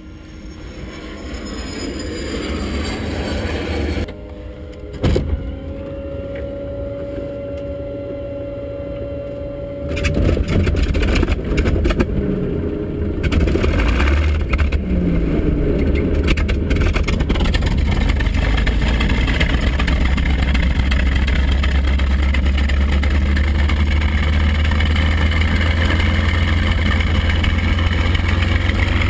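P-51 Mustang's liquid-cooled V-12 engine being started, heard from the cockpit. A rising whir and a click are followed by a steady whine for about five seconds. The engine catches about ten seconds in, coughing and popping unevenly, cleans out right away and settles into a steady, loud run, firing on all 12 cylinders.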